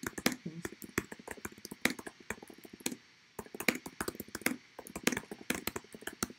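Rapid typing on a computer keyboard, quick key clicks in two runs with a brief pause about three seconds in.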